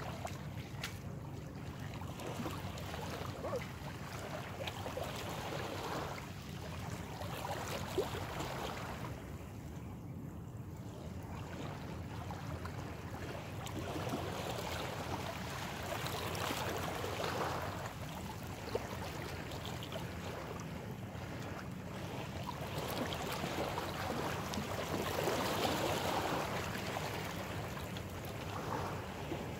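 Small waves washing against shoreline rocks, swelling and easing every several seconds, over a steady low rumble.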